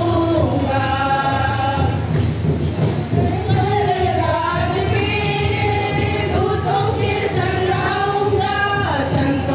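A group of women singing together, led through a handheld microphone.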